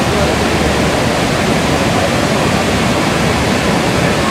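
Magic Fountain of Montjuïc's tall show jets, a loud, steady rush of falling and splashing water.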